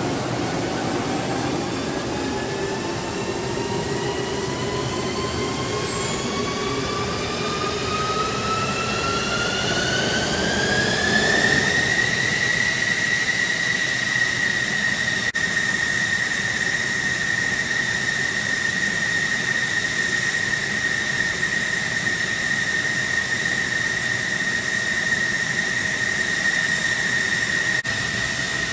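F-16 fighter's jet engine starting: a whine rising steadily in pitch for about twelve seconds, then holding at a steady high whine as it settles to idle.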